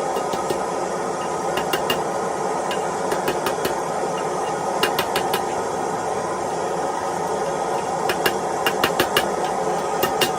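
Blacksmith's hammer striking steel on an anvil in quick groups of three to five light blows, each with a short ring. Under them runs a steady rushing noise.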